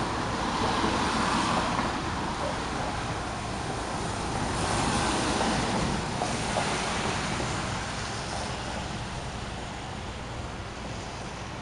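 Thunderstorm wind and rain making a steady rushing noise that swells twice and eases off toward the end.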